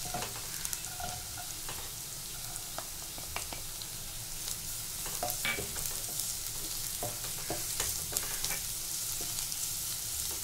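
Sliced onions, dried red chillies and chopped garlic sizzling in hot oil in a non-stick wok, stirred and scraped with a wooden spatula, with scattered light clicks and scrapes over a steady sizzle.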